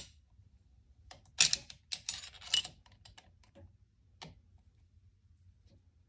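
Metal clicks and clinks of a 12 mm wrench on the lock nut of a Honda CB350's rocker arm shaft as the nut is tightened down after a valve adjustment. A cluster of rapid clicks comes between about one and a half and two and a half seconds in, then a few single ticks.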